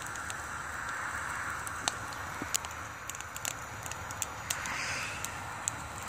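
Fan-fed wood fire in a BioLite CampStove burning with a steady rushing noise, with scattered sharp crackles and pops from the burning wood.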